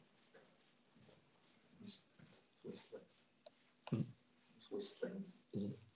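A loud, high-pitched chirp repeating evenly about two and a half times a second, each chirp short and steady in pitch.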